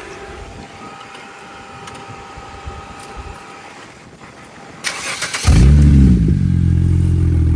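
The BMW N54 twin-turbo straight-six cranks briefly about five seconds in and catches. Its revs flare up, then settle into a loud, steady idle.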